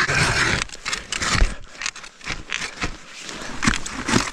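A hand-cranked ice auger is being turned, its blades scraping and crunching through lake ice in a run of irregular strokes.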